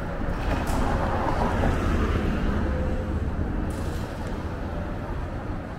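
City street traffic: a steady low rumble of engines and tyres, with one vehicle passing close that swells and fades over the first three seconds.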